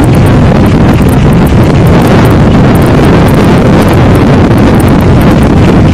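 Loud, steady wind buffeting the microphone in the strong winds near a tornado-producing storm.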